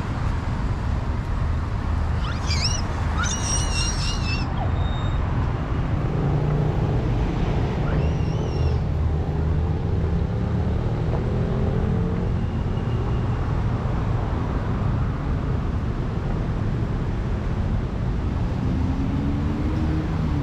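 City road traffic: a steady low rumble of passing cars and other vehicles. One engine's note rises slowly between about six and twelve seconds in, and a few brief high chirps come about two to four seconds in.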